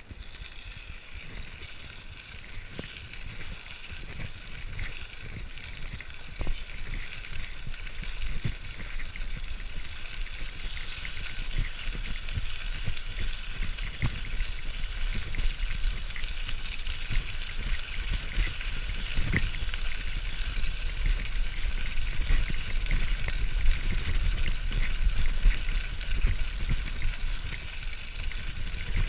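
Bicycle riding along a gravel path, heard from a handlebar-mounted action camera: a steady low rumble of wind and tyre noise with a gritty hiss of tyres on gravel and a few knocks from bumps. It grows louder as the bike picks up speed.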